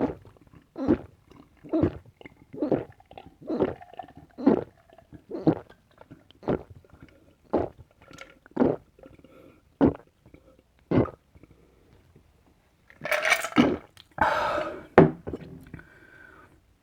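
Close-miked gulps of iced Coca-Cola being chugged in one go, about one swallow a second, a dozen in a row and slowing slightly toward the end. After a short pause, two louder, rough breath sounds follow as the drinking stops.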